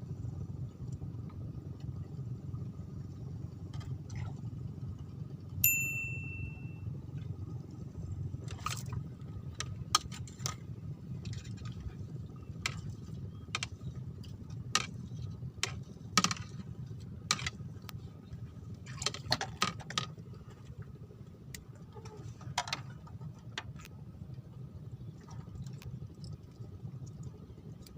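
A steady low hum with one short, bright ding about six seconds in, then a string of light, sharp clicks and clinks, thickest through the middle and thinning out near the end.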